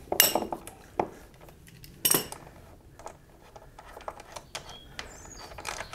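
Metal hand tools clinking as a socket wrench and Allen-key socket are worked on the front axle's end bolt of a motorcycle, the bolt already broken loose and being unscrewed. Three sharp clinks come in the first two seconds, then only faint scattered ticks.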